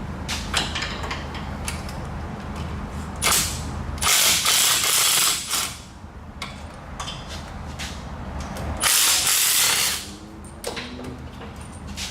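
Ratchet clicking as exhaust manifold bolts are worked out, with two loud hissing bursts: the first about four seconds in, lasting over a second, and the second about nine seconds in.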